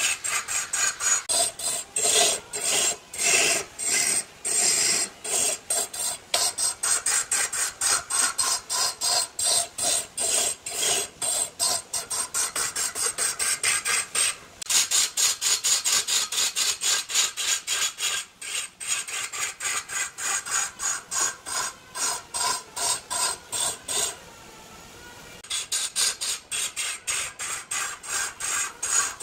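Wood being worked by hand with an abrasive, scraped in quick back-and-forth strokes about three a second, with a short break about 24 seconds in.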